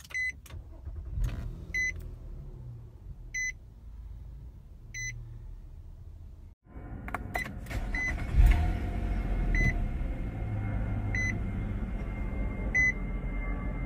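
Nissan Maxima dashboard warning chime: a single high beep repeating about every one and a half seconds. About halfway through it switches to a second car's chime at the same pace, over louder low cabin and engine noise.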